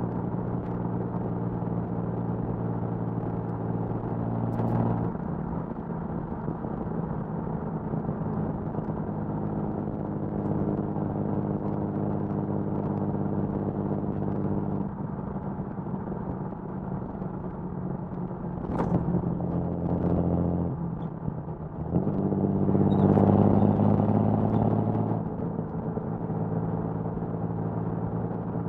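1979 Datsun 280ZX's L28 inline-six, fed by triple Weber carburettors and breathing through an HKS Hi-Power exhaust, driving along: a steady exhaust note that shifts in pitch a few times and grows louder for a few seconds near the end.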